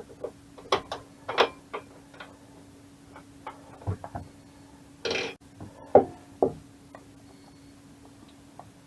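Irregular small clicks and knocks of metal pen-kit parts being handled and fitted together, with a short rustle just after the middle, over a steady low hum.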